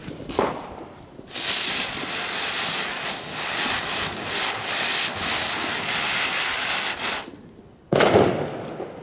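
Small ground-spinner firework (Geisha Electric Flowers) hissing steadily as it whirls and throws gold sparks, the hiss pulsing rapidly with the spin; no bangs or crackle. It cuts out about seven seconds in, and a second spinner flares up with a fresh burst of hiss a second later.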